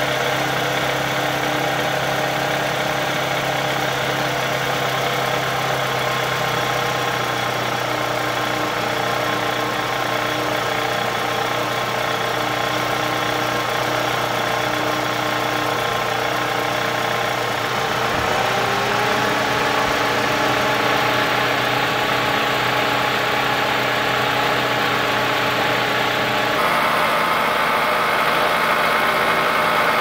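2003 Toyota Camry's 2.4-litre four-cylinder (2AZ-FE) engine idling with a pretty loud mechanical noise. The engine note shifts up about two-thirds through and changes again near the end. The owner put the noise down to the lifters, camshaft and timing idler.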